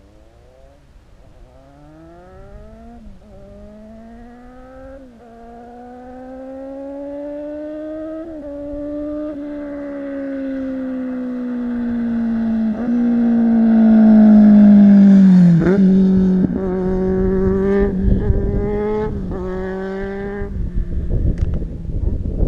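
Kawasaki Z800's inline-four motorcycle engine through an SC-Project aftermarket exhaust, accelerating hard through the gears: the note climbs and drops sharply at each upshift, loudest about 15 seconds in. It then holds a steadier note with a few brief breaks, and wind noise takes over near the end.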